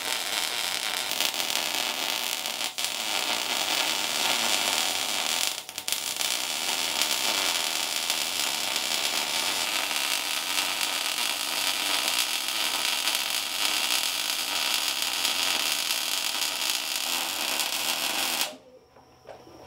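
Wire-feed welder's arc burning on steel tube, an even hissing noise with two short breaks about three and six seconds in, cutting off suddenly near the end.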